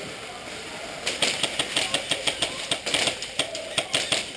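Airsoft guns firing: a rapid, irregular run of sharp snapping shots that starts about a second in.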